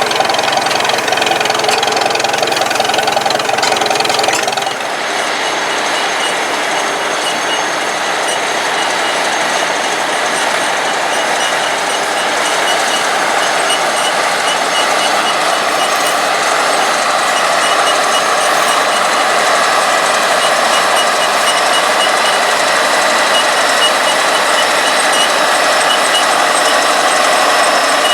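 Heavy farm machinery running steadily under load during wheat harvest, with an abrupt change in the sound about five seconds in.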